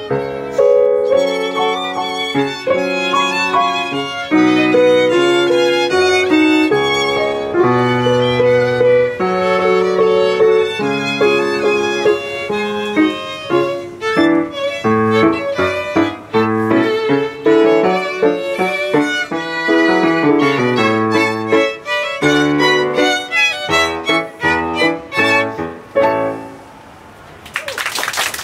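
Violins playing a classical piece with piano accompaniment, the music coming to a close about two seconds before the end. Applause breaks out right after.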